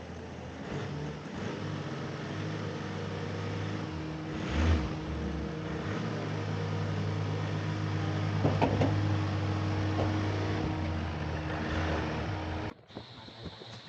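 A motor running with a steady low hum that shifts pitch and level a few times, cutting off abruptly near the end.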